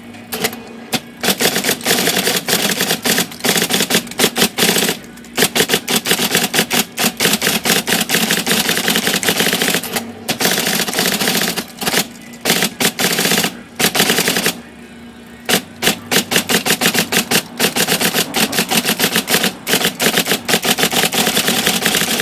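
IBM Selectric III electric typewriter being typed on rapidly, fast runs of sharp typing clacks with a few short pauses, over the steady hum of its motor. This is a test run of the keyboard after the sticky interposer mechanism was flushed and lubricated.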